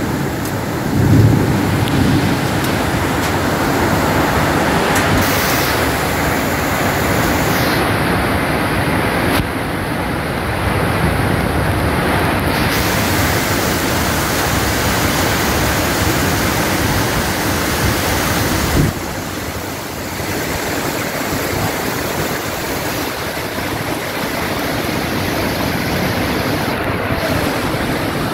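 Heavy rain pouring steadily, with a low rumble of thunder at the start and again about a second in.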